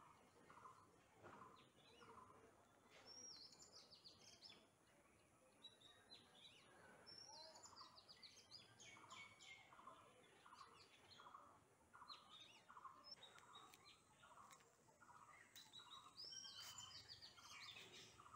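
Birds calling faintly: one repeats a short note nearly twice a second, while others give bursts of higher chirps and quick sweeping notes several times.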